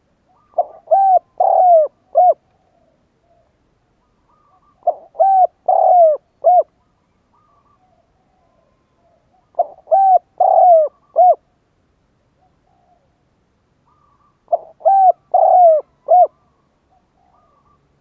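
Spotted dove cooing its song: four phrases about five seconds apart, each a quick run of four coos, a short one, two longer ones and a clipped last note. It is the male's call that is used as a decoy to draw wild spotted doves in.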